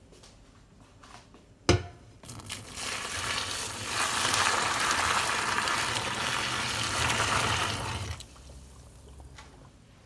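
Boiling water poured into a stainless steel sink onto a polyester jacket: a steady pour lasting about six seconds. It begins shortly after a sharp knock about two seconds in and stops near the end.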